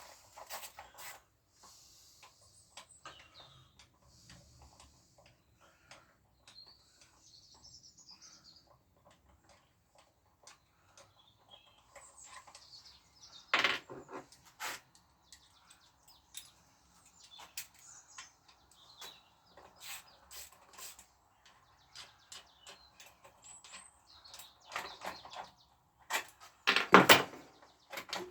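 Scattered clicks, clinks and knocks of hand tools and metal engine parts being handled while a four-stroke scooter engine is opened up. Louder knocks come about halfway through and again near the end.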